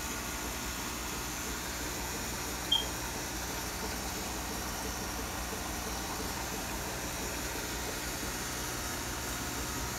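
Steady hiss and low hum of running aquarium equipment, with water moving in the tank. About three seconds in, a single short high-pitched blip.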